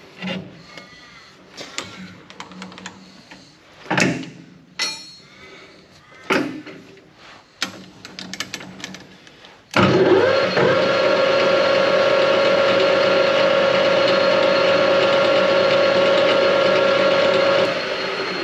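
Metal knocks and clinks as a lathe's four-jaw chuck is turned and set by hand. About ten seconds in, the lathe starts, settles quickly into a steady running whine, then is switched off near the end and begins to spin down.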